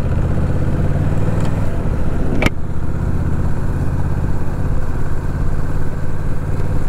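Honda Rebel 1100 motorcycle engine running steadily at low road speed, with one sharp click about two and a half seconds in.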